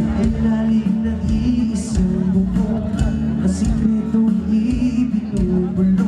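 Pop band playing live over a festival PA, acoustic guitar and bass with a steady beat about once a second, heard from the crowd.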